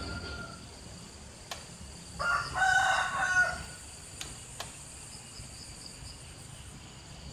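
A rooster crows once, a little over two seconds in, for about a second and a half, over a steady high-pitched chirring of insects.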